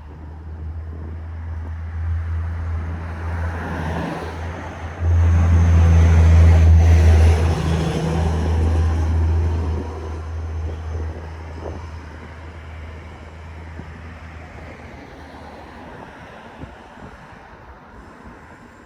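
A motor vehicle passing by. Its rumble builds to a peak about five to eight seconds in, then fades away.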